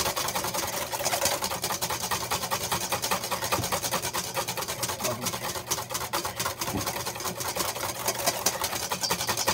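Wire whisk beating egg yolks and lemon juice in a stainless steel bowl, the wires clicking rapidly and steadily against the metal. The mixture is being whipped to work air in, the base for a mayonnaise-style dressing.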